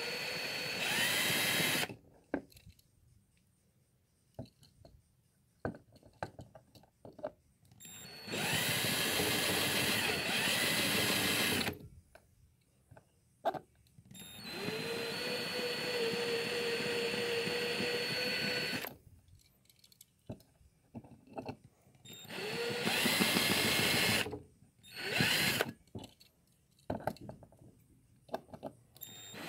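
Power drill running in about five bursts of one to four seconds, its whine rising as it spins up at the start of each, as a dull bit works at a tiny rivet in a diecast toy car's base. Small clicks and knocks of handling between the bursts.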